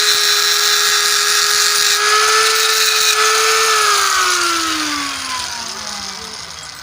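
Hand-held electric power tool running at full speed on the metal of a transmission case, a steady whine over a grinding hiss while the area around a drilled bolt hole is surfaced. Near the middle it is switched off and its whine falls steadily in pitch and fades as it spins down.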